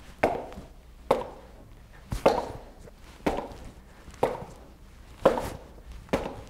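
Boxing-gloved punches landing on the padded target pads of a LifeSpan Cycle Boxer's punching panel: about one dull thud a second, each with a brief ring, with two quick hits close together about two seconds in.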